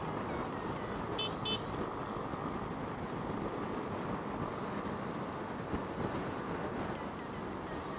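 Steady wind and road rush from riding a motorcycle at speed, with two short high beeps about a second in.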